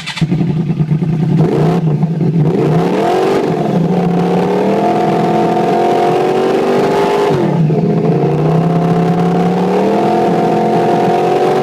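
A 2009 Yamaha R1's crossplane inline-four, breathing through a Toce T-Slash exhaust, fires up and is revved. The revs sag and climb back twice, then hold steady at about 6,000 RPM, really loud at about 120 decibels.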